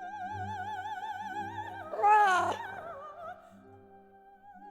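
Operatic female singing: a long high note with wide vibrato over sustained orchestral accompaniment. About two seconds in, a short louder cry with a falling pitch cuts across it.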